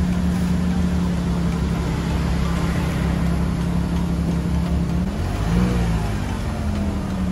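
A 2002 Lexus RX300's 3.0-litre V6 idling steadily with a new PCV valve fitted. It is revved once, briefly, about five seconds in, and falls back to idle.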